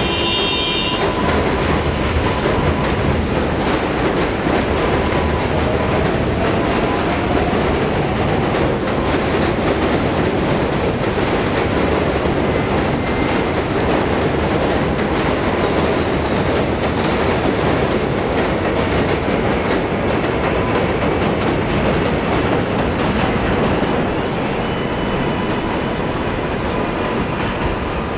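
New York City Subway train running on elevated steel track: a steady rumble with clattering wheels over the rail joints. A brief high tone sounds near the start, and the noise eases slightly near the end.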